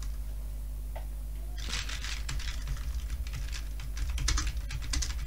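Typing on a computer keyboard: a quick run of keystrokes starts about a second and a half in, over a faint steady low hum.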